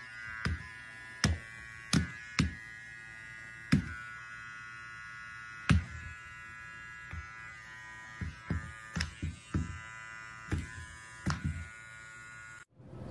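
A small electric gadget lying on the floor buzzing steadily, like an electric trimmer running, with a dozen or so sharp knocks as a serval bats at it and pounces on it. The sound cuts off abruptly near the end.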